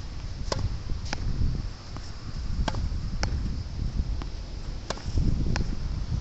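Wall-tennis rally: a tennis ball hit against a practice wall, sharp pocks in pairs about half a second apart, repeating roughly every two seconds, over strong wind rumbling on the microphone.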